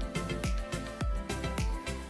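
Background music with a steady beat, about two low thumps a second under held melodic notes.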